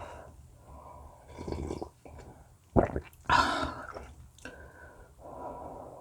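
Close-miked eating sounds: chewing with audible breathing through the nose, broken by a sharp click about three seconds in and a louder rushing sound right after it.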